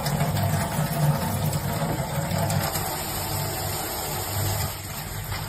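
Tap water running steadily through a Philips faucet-mounted water filter and splashing into a stainless steel sink: a continuous rush with a low hum under it.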